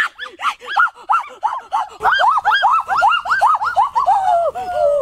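Boys' high-pitched excited shouting: rapid squeaky yelps, about four a second, ending in a longer falling wail.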